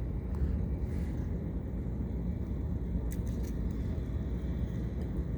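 Steady low outdoor rumble with no clear source, with a couple of faint clicks about three seconds in.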